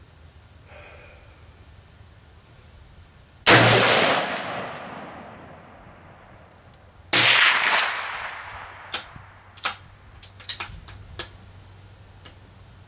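Two rifle shots from a DPMS Oracle AR-15 firing Federal XM193F 55-grain 5.56×45 mm ball, about four seconds apart, each with a long echo dying away over a couple of seconds. Several fainter sharp cracks follow in quick succession near the end.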